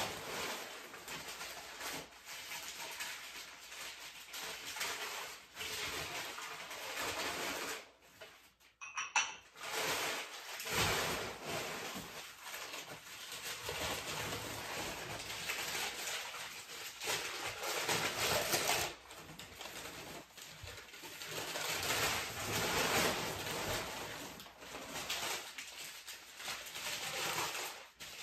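Packing paper rustling and crinkling in a cardboard box as glassware is unwrapped, with a brief ringing clink of glass about nine seconds in.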